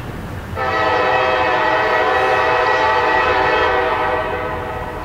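Diesel locomotive air horn sounding one long, steady blast of several tones together, starting about half a second in and fading out near the end, from a train still out of sight.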